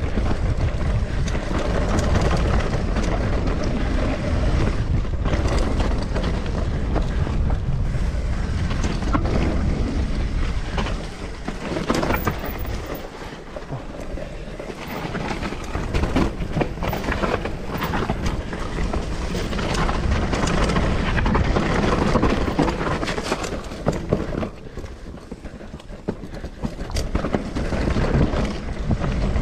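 Mountain bike descending a dirt forest singletrack: continuous tyre rumble over dirt and leaves, with frequent knocks and rattles from the bike over bumps and wind buffeting the microphone. It eases off and gets quieter twice, about halfway through and again near the end.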